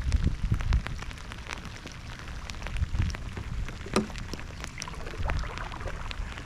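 Rain falling on the lake and the kayak: a dense patter of separate drop ticks over a low rumble, with uneven low thumps.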